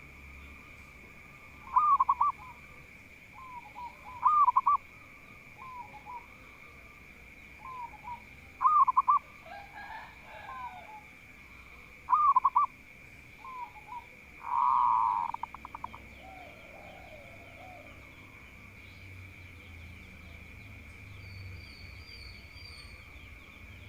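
Zebra dove (perkutut) cooing: about five loud phrases of rapid, wavering coos spaced a few seconds apart, with softer coo notes between them, over a steady high-pitched tone.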